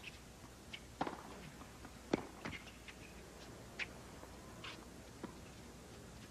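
Tennis ball being struck back and forth by rackets in a baseline rally on a hard court: a string of sharp pops, racket hits and ball bounces, about one every half second to second, the loudest near one and two seconds in.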